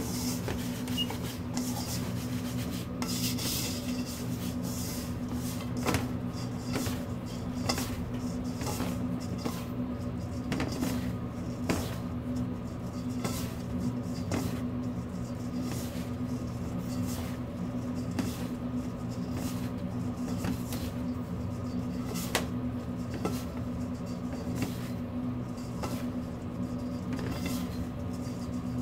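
Hands rubbing and tossing crumbly buckwheat flour dough in a stainless steel bowl, with scattered small scrapes and taps of fingers against the bowl. A steady low electrical hum runs underneath.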